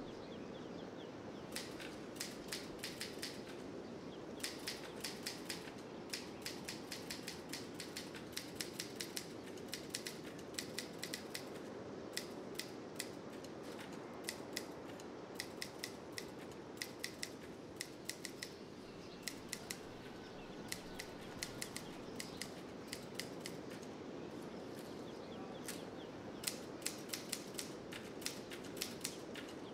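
Runs of rapid, sharp clicks, each run lasting a second or two with short pauses between, over a steady background hiss.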